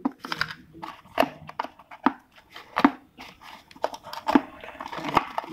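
Cardboard phone-box tray and inserts being handled: irregular sharp knocks, taps and scrapes of stiff cardboard as the parts are lifted and set down.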